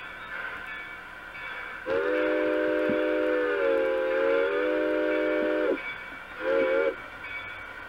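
Electronic model-railroad sound system sounding a multi-note train horn: one long blast of about four seconds whose pitch sags slightly in the middle, then a short blast, over a steady background drone.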